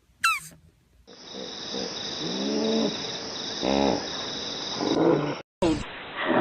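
Animal sounds from a compilation: a brief high squeak falling in pitch, then several pitched animal calls over a steady high buzz, cut off abruptly near the end before another clip begins.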